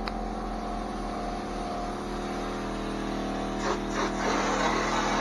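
Air compressor running with a steady hum; about three and a half seconds in, a drywall texture hopper gun starts spraying with a loud hiss of air and compound.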